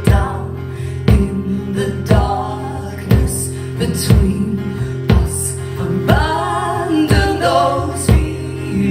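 Live band music: guitars over a steady thumping beat about once a second, with sung vocals carrying no clear words.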